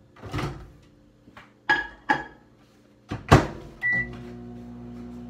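A few knocks and clunks, the loudest a bang about three seconds in, then a short beep, and a microwave oven starts running with a steady hum. The microwave is heating food.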